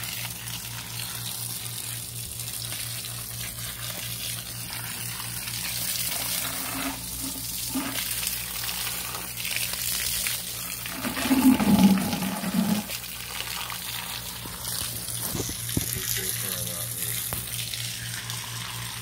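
Water running steadily from a hose onto a pile of prawns on a concrete floor, splashing and draining through a floor grate, over a faint low hum. A short louder sound breaks in about twelve seconds in.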